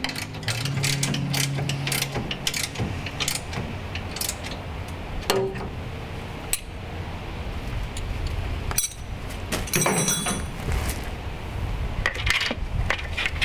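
Scattered metallic clicks and clanks from hand tools working on the steel brackets of an electric step unit, with a brief ringing metal sound about ten seconds in.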